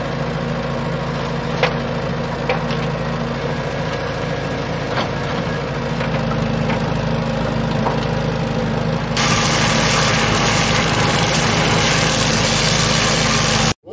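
Excavator's diesel engine running steadily, with scattered sharp cracks over it. About nine seconds in the sound switches abruptly to a louder, brighter engine noise.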